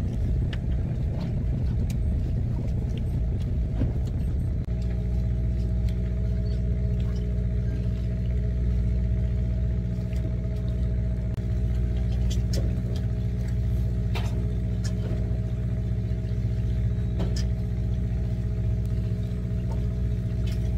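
A fishing boat's engine running steadily, a low hum. About five seconds in it changes suddenly from a rougher rumble to a smoother, even drone, with a few faint clicks over it.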